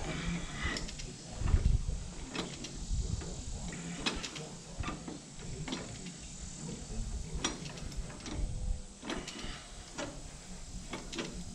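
Irregular metallic clicks and clanks of a large wrench working the long threaded adjusting bolt on a three-point quick hitch, with a few duller knocks about a second and a half in.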